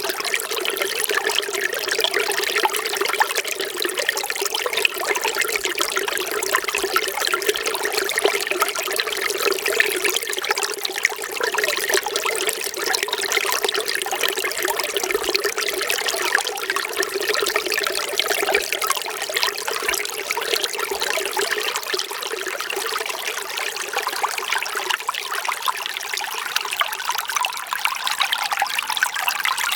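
Water trickling and flowing steadily, with a low tone running under it that fades out in the last few seconds.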